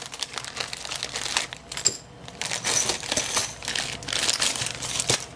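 Clear plastic bags of screws and small metal parts being handled and opened, the plastic crinkling with small metal clinks from the parts inside.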